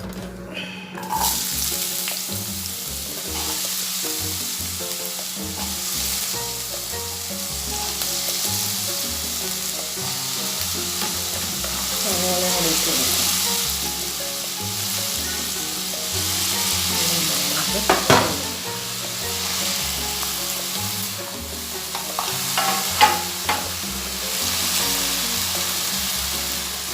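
Small-diced potatoes sizzling as they fry in a little hot oil in a pan, with stirring. The sizzle rises about a second in, and a utensil knocks sharply against the pan a few times later on.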